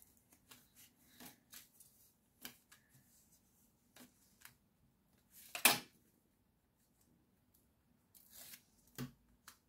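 Paper and card being handled on a cutting mat, pressed along with a bone folder and by hand: scattered light rustles and taps, with one louder paper stroke a little past halfway and another near the end.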